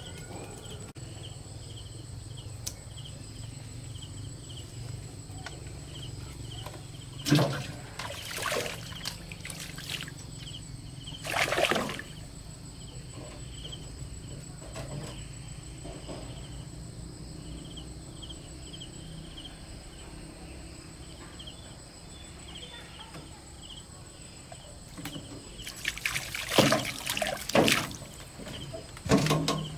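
Water splashing and pouring in several short bursts, a few seconds in and again near the end, over a steady background of insects chirping in an even rhythm.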